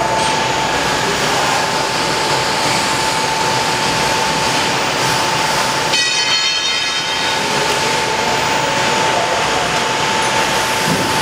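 Steady machinery noise in a CNC router workshop, a constant hiss with one steady mid-pitched hum running through it. A brief higher whine of several tones comes in about six seconds in.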